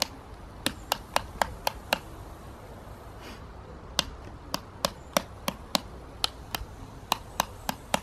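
Small switches on a MegaPoints servo-controller demo board being flipped one after another, giving sharp single clicks in three short runs with pauses between.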